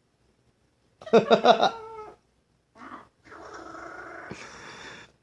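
Amazon parrot giving cat-like meowing calls: after a silent first second, a loud call, a short one, then a longer, rougher drawn-out call.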